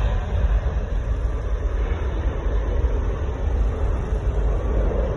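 Jet airliner flying overhead: a steady, loud rumble and rush of engine noise.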